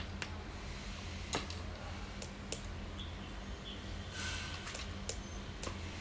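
Small plastic push-button clicks from a key-fob remote and a receiver board's learning button being pressed, several separate clicks with the loudest about a second and a half in, over a steady low hum and a brief rustle midway.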